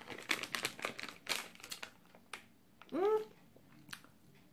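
Plastic candy wrapper crinkling in the hands for about two seconds in quick crackles, then a short vocal 'ooh' about three seconds in, rising and falling in pitch.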